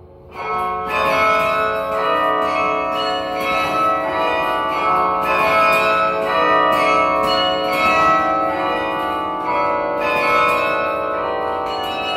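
The 54-bell Yale Memorial Carillon being played from its baton keyboard: many bells struck in quick succession and together in chords, each note ringing on under the next. Quieter ringing gives way to a sudden loud entry about a third of a second in, and the playing stays busy after that.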